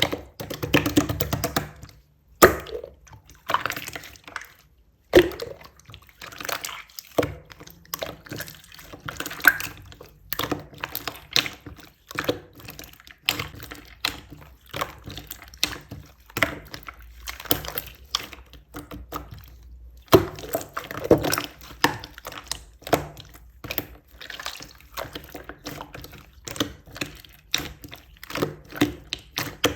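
Clear slime being squished and pressed by hand, giving a steady run of irregular wet clicks and pops.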